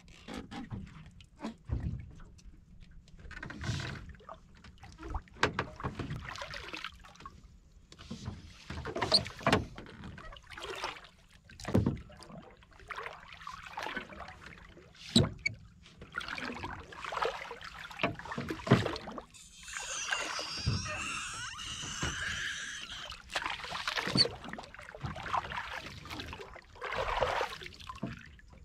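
Irregular knocks and handling thumps on the planks and gunwale of a small wooden fishing boat while a hand line is worked over the side, with a few seconds of hissing noise about twenty seconds in.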